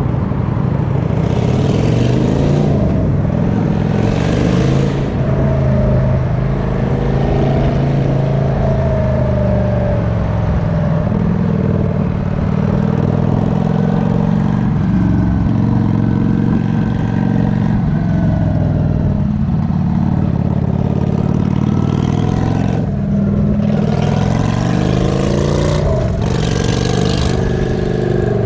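A motor vehicle's engine running, its pitch slowly rising and falling as the revs change, with a few brief hisses.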